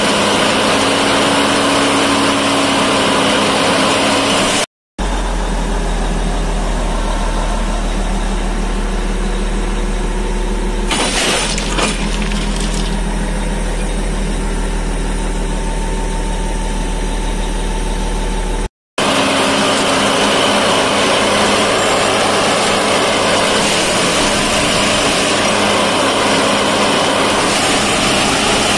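Duomatic track tamping machine running: a loud, steady diesel engine and machinery noise. It cuts out twice for a split second, and in the middle stretch a deep hum is stronger, with a short clatter partway through.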